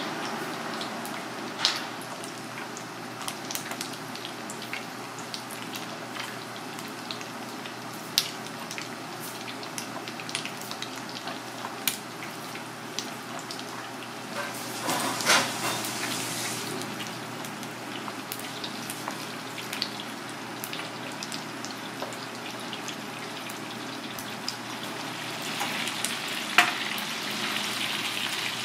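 Floured pieces of crocodile fish deep-frying in hot oil: a steady sizzle dotted with crackling pops, swelling louder for a moment about halfway through, with a sharp tick near the end.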